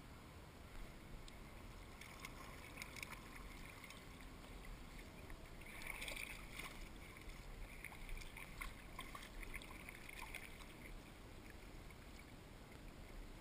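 Kayak paddling on calm water: the paddle blade dipping, with small splashes and drips of water falling near the hull, loudest about six seconds in.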